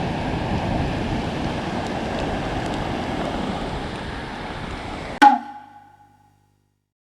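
Surf washing on a sandy beach with wind noise, steady for about five seconds. Then a single sharp percussive hit with a ringing tone cuts in and fades to silence.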